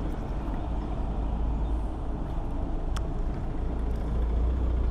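Steady low outdoor rumble with a sharp single click about three seconds in.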